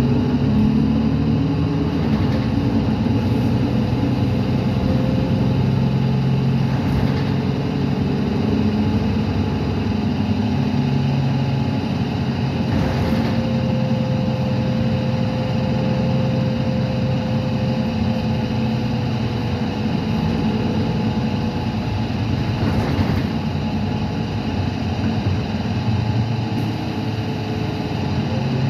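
Inside the cabin of a Gillig Advantage low-floor bus under way: its Cummins ISL9 inline-six diesel runs steadily with road noise, the engine note stepping up and down a few times. A faint whine rises and falls over it.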